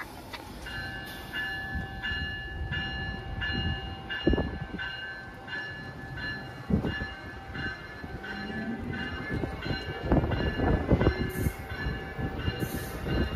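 Amtrak Amfleet passenger cars rolling past close by, a steady rumble with heavier wheel thuds a few times. A ringing tone pulses about one and a half times a second over it.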